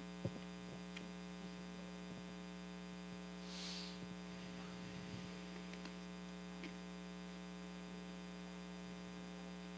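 Steady electrical mains hum, with a sharp click just after the start, a few faint knocks and a brief soft hiss about three and a half seconds in.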